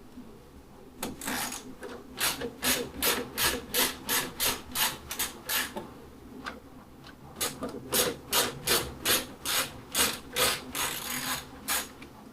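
Hand driver turning out the T25 Torx screws that hold a motorcycle headlight in its fairing: short rhythmic strokes, about three a second, in two runs with a pause of a second or so in the middle.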